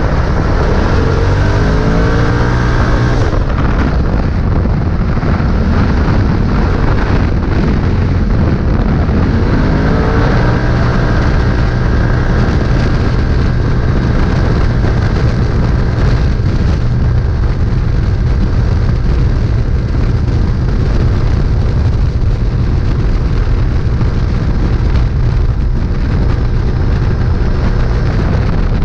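Polaris RZR race side-by-side's engine under hard throttle, heard from on board: the revs climb near the start and again about ten seconds in, then hold high over a steady loud rumble of the run.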